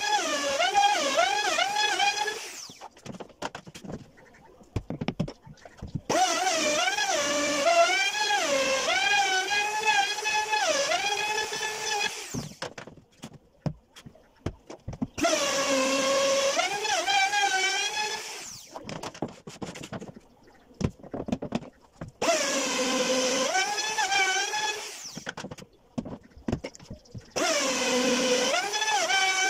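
Handheld trim router cutting grooves into a door panel, run in five bursts of a few seconds each: a high motor whine that swoops up as it starts and dips and wobbles in pitch as the bit bites into the wood. Between runs, light clicks and knocks as the straightedge guide is repositioned.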